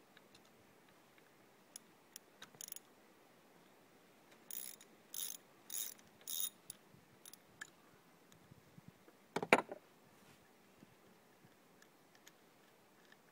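Hand ratchet with a spark plug socket clicking in short runs as the plugs are backed out of an outboard's cylinder heads, with four quick rasping ratchet strokes about four to six seconds in. One louder knock comes about nine and a half seconds in.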